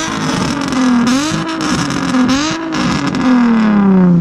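Car engine with a loud exhaust being revved while parked: it is held high with two quick dips and recoveries of the throttle, then the revs fall away steadily near the end.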